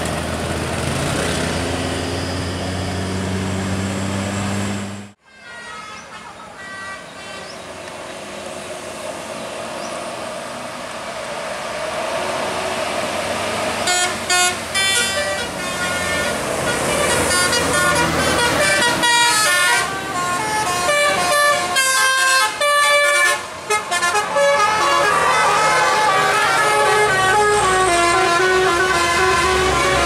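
Bus engines and traffic, then a sudden cut to a tour bus's telolet basuri musical horn playing a tune of quick stepped notes, louder and busier in the second half.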